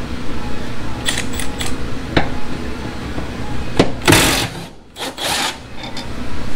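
Cordless power ratchet running in two short bursts, about four and five seconds in, as it works a bolt on the car's exhaust. A few sharp metallic clicks come before it, over a steady low drone.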